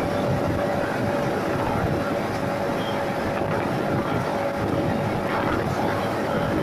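Yamaha MT-15 V2's 155 cc single-cylinder engine running steadily while cruising in sixth gear, heard with wind and road noise, with a constant steady drone.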